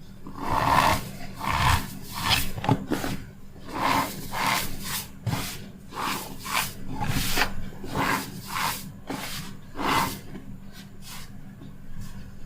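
Packed cornstarch squeaking and crunching as it is squeezed and crumbled by hand, in a long run of short, irregular squeaks and crackles, about two a second.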